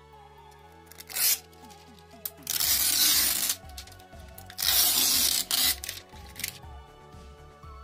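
Background music with a steady beat, broken by several loud rubbing, rustling handling noises of up to about a second each as hands work around the 3D printer.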